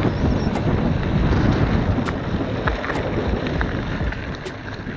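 Wind rushing over the microphone of a moving bicycle, with the tyres running on a dusty dirt road and scattered small clicks and rattles.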